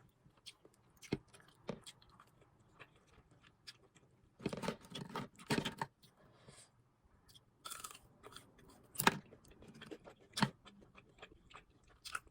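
Chewing of crunchy fried food: crisp crunching bites and small clicks, heaviest about four to six seconds in, with single loud crunches near eight, nine and ten seconds.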